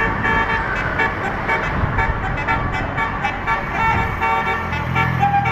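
Bus 'telolet' basuri horn, a multi-note musical horn, playing a quick run of changing tooting notes. A deeper steady tone joins about four and a half seconds in.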